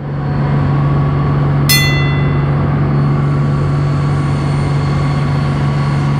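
Charter fishing boat's engine running steadily under way, a low drone over the rush of wind and water. A brief high metallic ring sounds about two seconds in.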